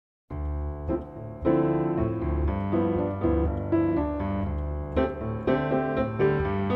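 Music played on a piano: chords with a melody over them, starting suddenly after a moment of silence.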